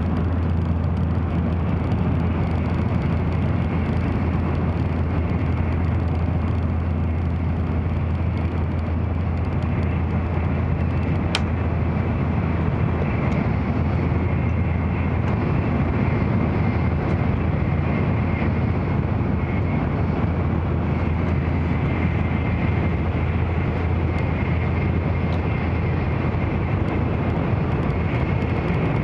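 Steady in-cabin running noise of an N700 series Shinkansen at speed: a low rumble under an even rushing sound, with a faint high whine that grows a little stronger in the second half. One sharp click about eleven seconds in.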